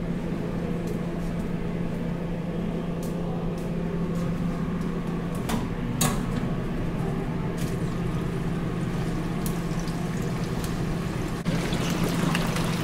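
Chicken wings deep-frying in a restaurant kitchen: a steady hum with an even hiss of the fryer, broken by two sharp clinks about halfway. The hiss gets louder near the end.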